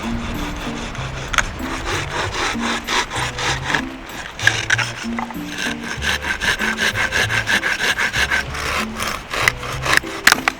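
Hand saw cutting through wood in quick, regular strokes, about three a second, starting about a second in. Background music plays underneath.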